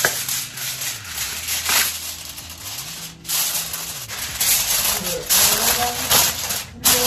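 Reynolds Wrap aluminum foil being pulled off the roll and crinkled as it is pressed over a disposable foil baking pan to cover it. It makes a steady crackling rustle that breaks off briefly about three seconds in and again near the end.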